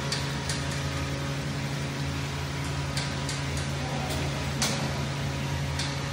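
Steady electric hum from a transfer conveyor's drive running, with scattered light clicks and ticks from the carriage on its rails.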